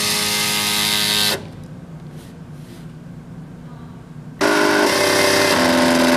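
Stepper motors of a small homemade CNC pen plotter whining steadily as they drive the pen, in a hum of several tones at once. It stops about a second and a half in, stays quiet for about three seconds, then starts again at a different pitch, which shifts once more near the end.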